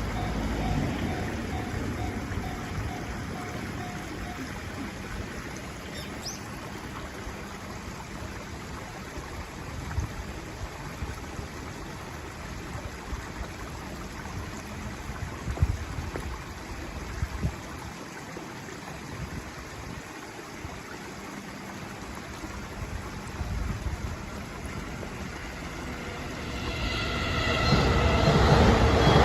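A level-crossing warning bell rings repeatedly in the first few seconds and stops; then low outdoor background noise with a few short knocks. Near the end a JR Nambu Line electric train approaches, growing steadily louder with several steady tones over its rumble.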